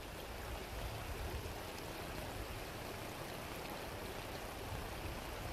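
Steady rushing of a shallow river's current flowing over stones.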